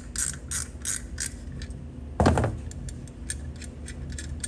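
Repeated ratcheting clicks from a spring compressor tool being worked to squeeze a door hinge spring down as small as it will go. About two seconds in there is one louder short sound that slides down in pitch.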